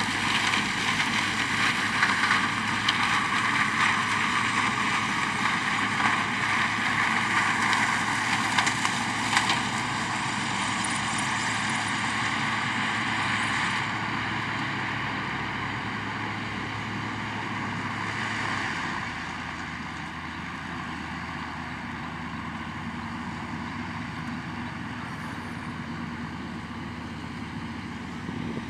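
Sugarcane harvester running steadily while cutting cane and elevating it into a truck, its engine drone mixed with the truck's, with a steady whine above the drone. The noise grows gradually quieter as the machines move away.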